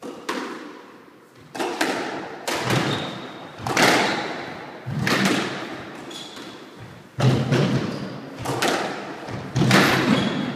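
Squash rally: the ball struck by racquets and smacking off the court walls, about eight sharp impacts a second or so apart, each ringing on in the enclosed court.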